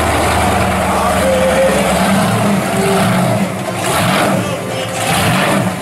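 1972 Pontiac GTO pro street car's V8 running as the car creeps along at low speed, a steady low drone whose pitch wavers up and down in the second half.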